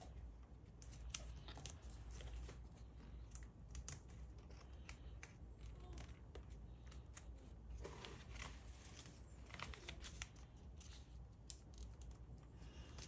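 Faint rustling and crinkling of a sheet of origami paper being folded and creased by hand, in scattered short clicks and brief rustles.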